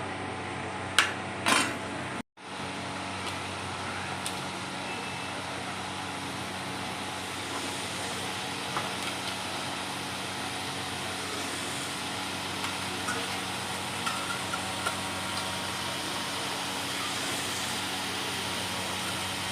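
Food sizzling steadily in a cooking pan, with a couple of sharp clinks of a utensil on the pan near the start and a few faint ticks later.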